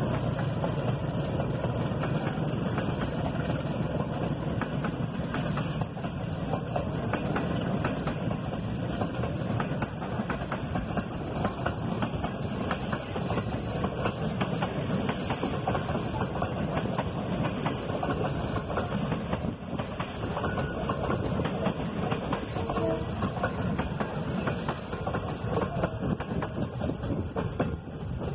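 Passenger coaches of a departing train rolling past at close range, their wheels clacking steadily over the rail joints with a rumbling noise underneath. The sound eases as the last coach goes by near the end.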